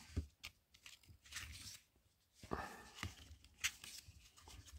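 Faint paper rustling and crinkling in several short spells: a paper instruction booklet being handled and its pages turned.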